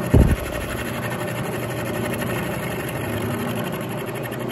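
Knee mill running, its spiral end mill taking a steady cut along the side of a metal T-nut blank as the table feeds. A brief loud low thump about a quarter second in.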